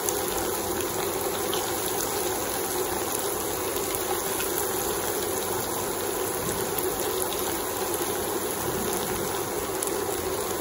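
Hot oil sizzling steadily as batter-coated chicken pakoda pieces deep-fry in a pan.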